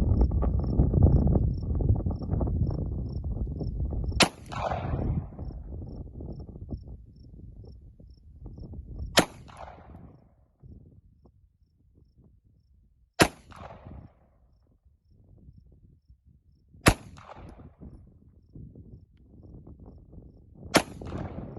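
Five single shots from a Glock 34 pistol firing 9mm, spaced about four seconds apart, each a sharp crack trailing off in a short echo. An insect chirps faintly in quick, even pulses through the first half.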